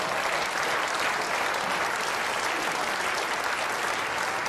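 Studio audience applauding, a steady dense clapping that runs on evenly.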